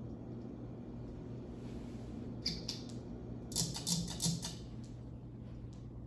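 Minka Aire Mojo ceiling fan running with a steady low motor hum. A couple of sharp clicks come about two and a half seconds in, then a quick cluster of louder clicks about a second later, as the light kit's pull-chain switch is worked and the light goes off.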